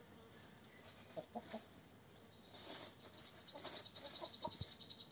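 Domestic hens clucking a few times as they feed on Swiss chard, with a high, rapid trill running through the second half and a single sharp click near the end.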